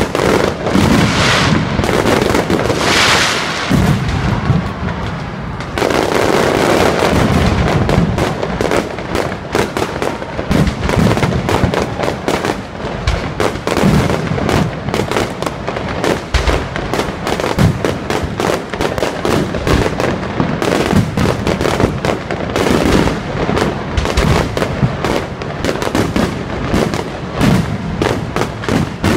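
Fireworks display: a continuous rapid crackle of many small bangs mixed with heavier booms from aerial shells and ground fountains. A rushing hiss stands out in the first few seconds.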